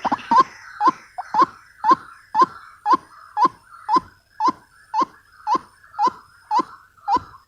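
White-breasted waterhen calling: a short rising note repeated steadily about twice a second.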